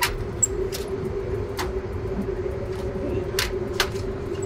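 A steady machine hum at one pitch over a low rumble, with a few sharp clicks and knocks as the fold-out side table in the airliner cockpit is pulled out and handled.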